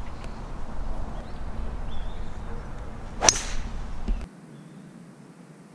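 A 5-wood striking a golf ball off the tee: one sharp crack a little over three seconds in.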